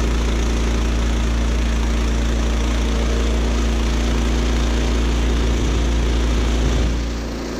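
Woodland Mills HM126 portable bandsaw mill running, its gas engine at speed while the band blade saws through a cherry log. The sound is steady, then drops in level about seven seconds in.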